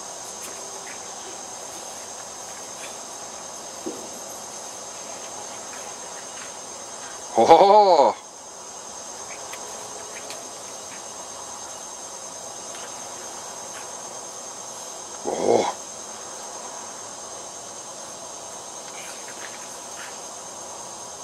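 Steady hiss with a thin high whine throughout, most likely the camcorder's own recording noise. A woman says a short "oh" about seven seconds in, and another brief voiced cry comes about halfway through.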